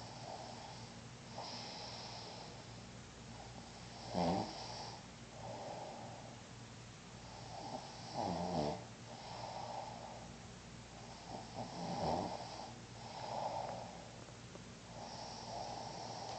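Snoring from a sleeper, a rasping breath every second or two, with three louder snorts that drop in pitch.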